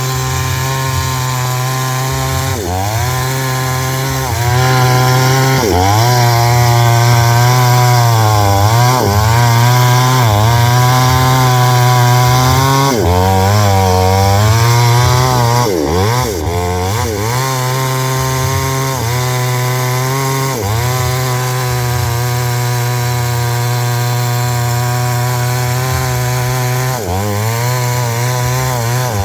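WEIZ chainsaw engine running at high speed while cutting wood, its pitch dipping and recovering again and again as the load changes.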